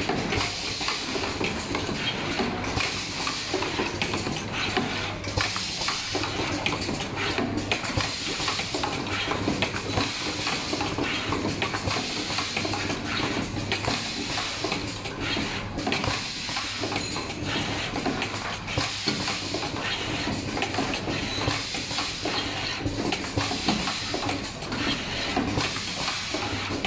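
Automatic assembly machine for metal herb grinders running: a steady machine hum and hiss with frequent light metallic clicks and clatter from its moving parts and air-driven actuators.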